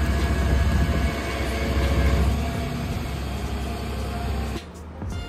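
Flatbed tow truck's engine and winch running while a car is pulled up the tilted bed, a heavy low rumble that eases a little about halfway through and stops abruptly near the end.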